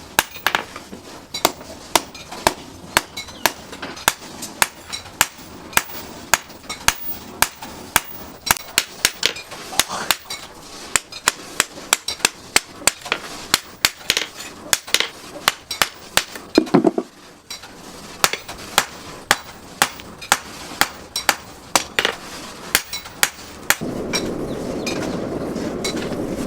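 Blacksmith's hammer striking steel on an anvil, about two blows a second with a brief pause partway through. Near the end a steady hissing noise starts under the blows.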